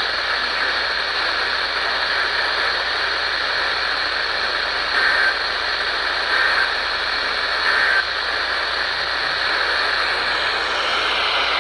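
Steady hiss of static from a weather radio receiver, with three short data bursts about a second and a half apart midway through: the EAS end-of-message codes that close the tornado warning broadcast.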